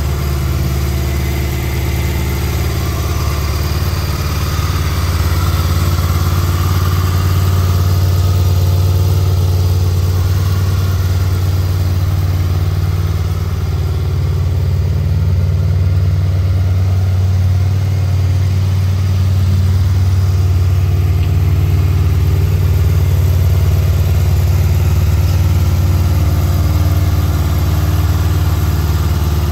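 Honda VFR800X Crossrunner's V4 engine idling steadily through an Akrapovic aftermarket exhaust.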